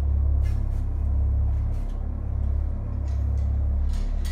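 Steady deep rumble that holds throughout, with faint scuffs and clicks on top.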